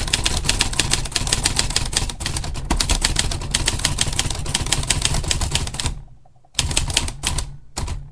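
Olivetti Lettera 32 portable manual typewriter being typed on fast, a dense run of key strikes. The strikes break off about six seconds in, then come a few last strokes near the end.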